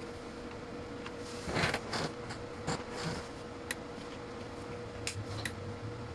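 Several sharp clicks and a short scraping noise from the surge-test bench, over a faint steady electrical hum. The scraping noise comes about one and a half seconds in, and clicks follow singly over the next few seconds.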